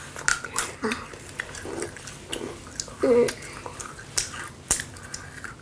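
Crisp meringue cookies with edible crickets being bitten and chewed, a run of scattered sharp crunches, with a short hummed voice sound about three seconds in.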